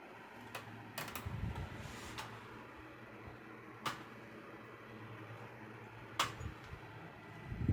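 Scattered sharp small clicks and a few dull knocks of hands working on a TV's main board and casing, taking out screws and unplugging cable connectors.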